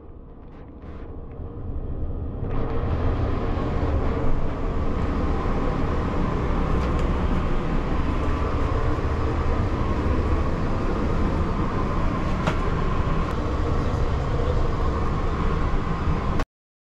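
Steady running noise of a moving vehicle, a low rumble and hum that builds up over the first couple of seconds and then holds level.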